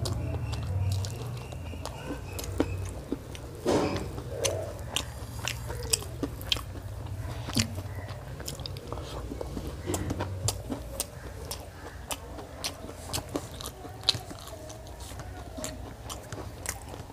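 Close-miked chewing and mouth sounds of a person eating rice and chicken curry by hand, with many short sharp smacks and clicks. A steady low hum runs underneath.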